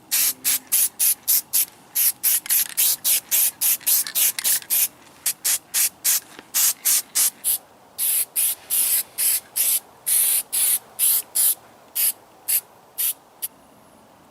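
A long run of short spray bursts, about three a second, with a few longer sprays about 8 and 10 seconds in.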